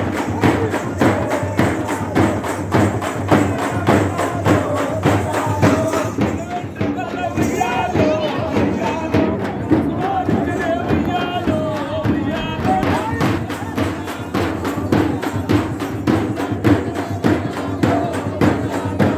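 Folk drums and large hand-held brass cymbals played together in a fast, steady beat. Voices sing or call over it in the middle.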